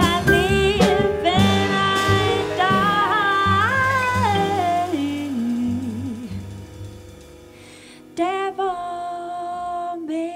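Live small-group jazz: a woman singing over upright double bass and drum kit. Her voice moves through a quick run of sliding notes, falls low and quieter near the middle, then holds one long note near the end.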